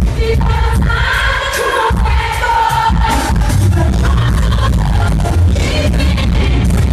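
Live R&B performance: a woman singing into a microphone over a band with heavy, sustained bass, recorded from the audience through the arena's loudspeakers.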